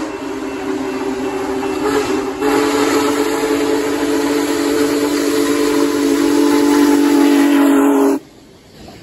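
Union Pacific Big Boy 4014 steam locomotive blowing its chime whistle in one long, loud blast, dipping briefly a couple of seconds in, then cutting off abruptly near the end, leaving the quieter rumble of the passing train.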